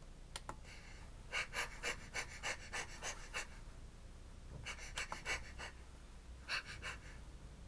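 Wireless mouse being worked on a bare wooden table top: three runs of quick, short sounds, about six a second.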